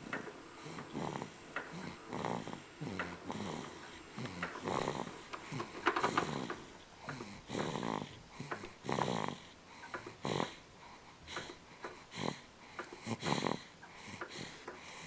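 Snoring: a run of irregular snores and snorts, roughly one per second, some with a pitched, whistling edge.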